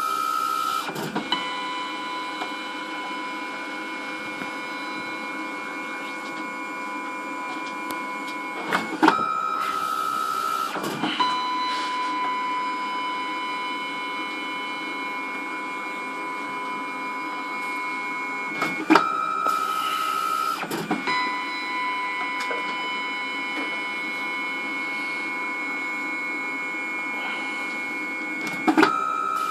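Olmec OP800 dye-sublimation photo printer printing: three long stretches of steady motor whine while the paper is driven through. Each stretch begins with a click and a brief higher-pitched whine, and the cycle repeats about every ten seconds.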